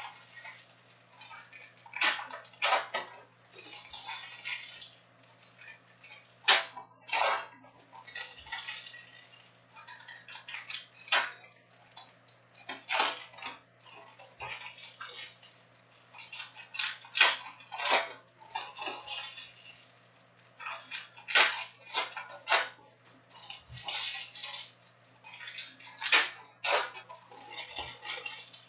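Foil trading-card packs being torn open and crinkled by hand, with cards handled, in irregular bursts of crackly rustling every second or two.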